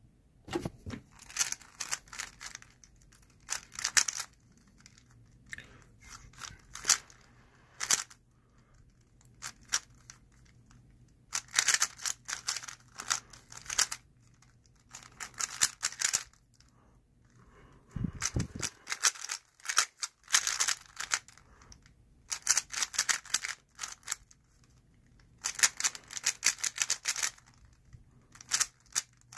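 A Moyu Weilong GTS v2 3x3 speed cube being turned fast by hand: bursts of rapid plastic clicking as the layers turn, broken by short pauses. A dull thump comes about eighteen seconds in.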